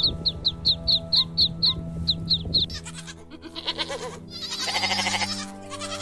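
Goats bleating over background music: one long, quavering bleat about five seconds in, after shorter calls. Before that, a run of high, quick chirps about four a second stops after two to three seconds.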